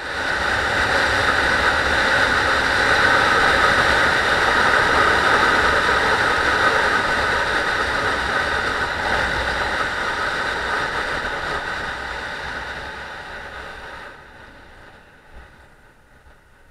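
125 cc motorcycle under way, engine running with heavy wind noise. It starts abruptly, then fades from about twelve seconds in and drops away near fourteen seconds.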